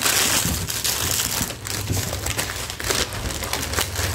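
Clear plastic bag being handled and scrunched close to the microphone, with continuous crinkling and crackling.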